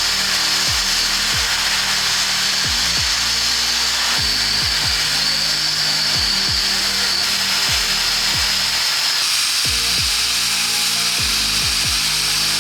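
Steady machine whir with a strong hiss from the blue-light pipe-lining rig, its air supply keeping the liner inflated while the resin cures.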